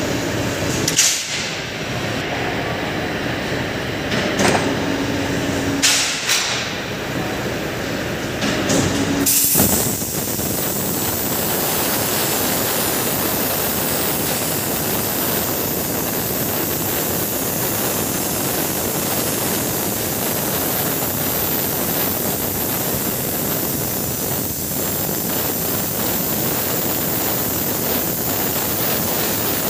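Hand-held plasma cutting torch cutting through a metal plate. After a few short bursts and knocks, the arc catches suddenly about nine seconds in and runs as a steady, loud hiss.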